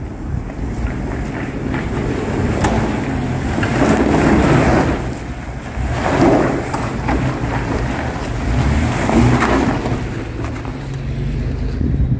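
Lifted Jeep Liberty KJ's engine pulling the SUV over rocks and loose gravel at low speed, swelling three times as the throttle comes on, with tyres grinding over the stones.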